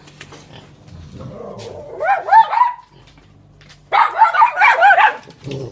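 Small dog barking in two quick runs of high yaps, the first about two seconds in and a longer one about four seconds in.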